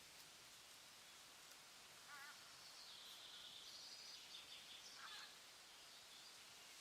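Faint forest ambience: a steady hiss with a few bird calls, a short wavering call about two seconds in and another around five seconds, with higher chirping in between.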